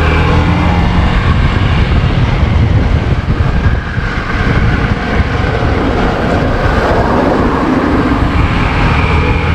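Motorcycle engine running steadily as the bike rides along a street, with wind rushing over the microphone.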